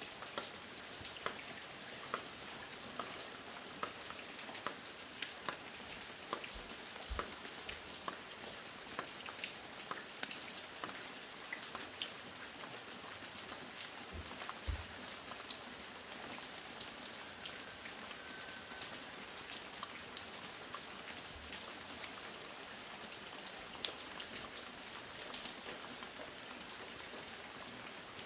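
Fine rain falling steadily, with many sharp individual drops and drips tapping close by, as water drips off a roof.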